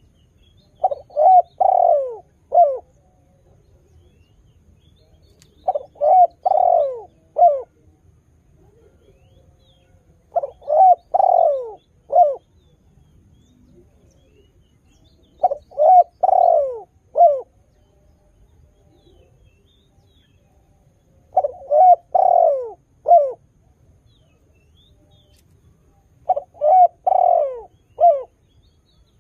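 Spotted dove cooing its song: six phrases about five seconds apart, each a quick run of a few coos ending on a falling note.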